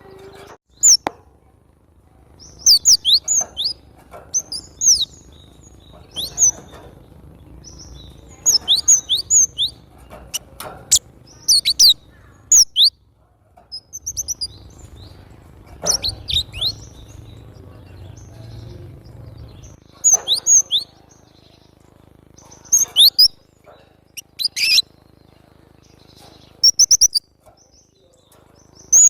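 Cinereous tit (gelatik batu) singing vigorously. It gives short bursts of quick, high, downward-sliding chirps, repeated every second or two with brief pauses between the bursts.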